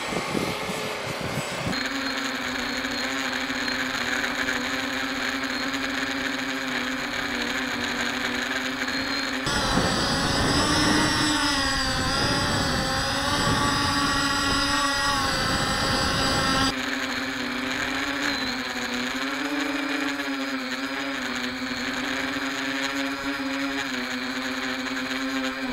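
Walkera Furious 320 quadcopter's brushless motors and propellers whining in flight, the pitch wavering up and down with throttle. The sound changes abruptly a few times as clips are joined, and is noisier in the middle stretch.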